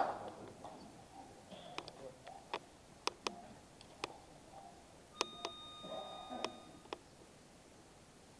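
Applause dying away, then a hushed room with scattered small clicks and knocks. About five seconds in, a steady high-pitched beep sounds for under two seconds and stops with a click.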